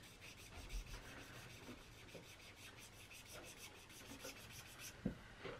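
Faint rubbing of a red water-based brush-tip marker stroked across paper to lay down a colour swatch, with a small knock about five seconds in.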